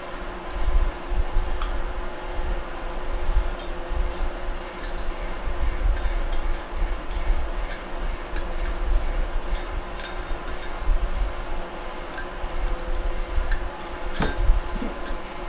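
Light metallic clicks and clinks of small valve parts being handled on a Honda HRM 215 mower engine's cylinder head, with a sharper click about fourteen seconds in, over a steady low rumble and faint hum.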